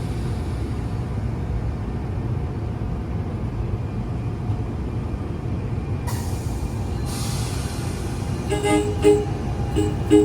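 Train air horn sounding a few short blasts near the end, over the steady low rumble of a train. A sudden hiss of air comes about six seconds in.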